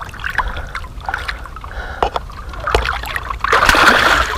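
Small splashes and water sloshing around a hand holding a released asp in the water at a boat's side, then a loud splash about three and a half seconds in as the fish kicks free and swims off.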